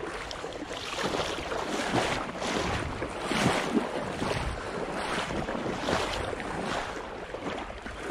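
Shallow lake water sloshing and splashing in repeated surges about once a second, as a person wades through it, with wind on the microphone.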